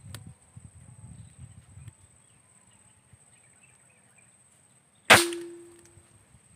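A single shot from a PCP air rifle about five seconds in: a sharp crack followed by a short ringing tone lasting about a second. Before it there is a faint low rumble.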